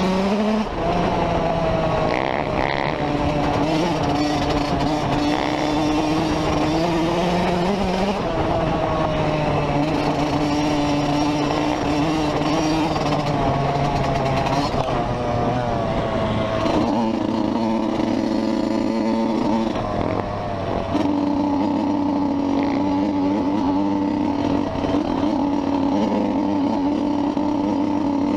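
Motorcycle engine running under way, its pitch climbing and then dropping back in steps several times as it is ridden, over a steady rush of noise.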